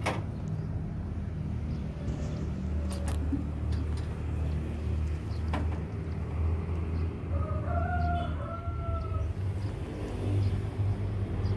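A low steady rumble throughout, with a rooster crowing once about three quarters of the way through.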